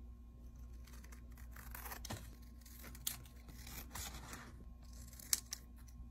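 Small pink-handled scissors snipping through a thin printed paper sheet, with papery rustling across the cut and a few sharp clicks, the sharpest a little after five seconds in.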